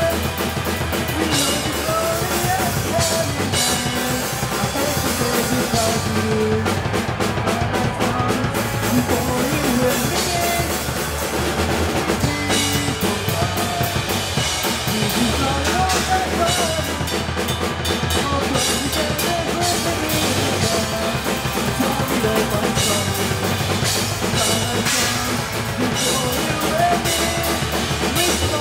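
Rock band playing live: a full drum kit with kick, snare and cymbals driving under electric guitar.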